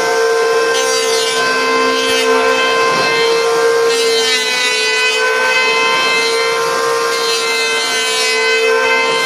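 Woodworking machine running with a steady, loud, high-pitched whine from its spinning cutter or blade.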